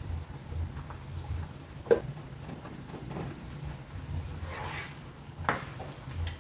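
Cream sauce simmering in a skillet while a utensil stirs and scrapes it, with two sharp knocks against the pan, about two seconds in and again near the end.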